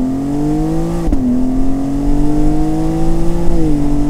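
BMW M2 G87's twin-turbo 3.0-litre straight-six under full throttle from about 30 mph in second gear, the engine note rising steadily. About a second in, the eight-speed ZF automatic upshifts into third with a quick drop in pitch, and the note climbs again more slowly before falling and levelling off near the end.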